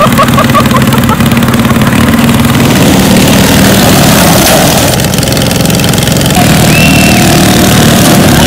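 Riding lawn mower engines running loud and steady close by, as the derby mowers push and ram one another.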